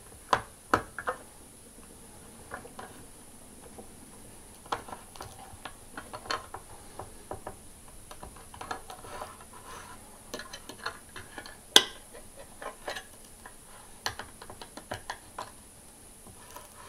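Victorinox pocketknife can opener being levered around the lid of a tin can: an uneven string of short metallic clicks and scrapes, with one sharper click about twelve seconds in.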